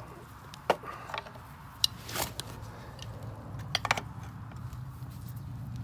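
A few separate sharp clicks and knocks from parts and hand tools being handled, over a steady low hum.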